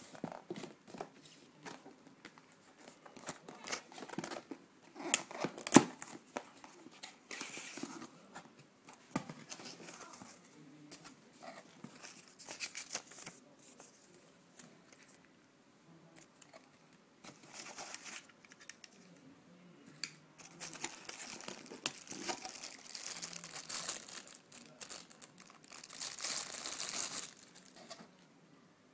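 Unboxing handling: a cardboard box being moved and opened, with scattered clicks and knocks, a sharp one about six seconds in. Later, plastic bags crinkle and rustle in several stretches as wrapped parts are lifted out of the foam packing.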